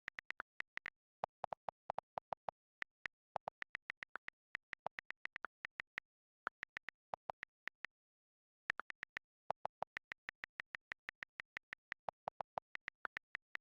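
Rapid runs of short, sharp clicks, about four or five a second, some higher and some lower in pitch. There are brief pauses between runs, the longest about eight seconds in.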